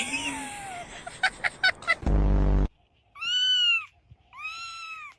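A cat meowing twice, each meow rising and then falling in pitch, about half a second apart. Before them comes a short loud buzzy tone, and before that some clattery noise.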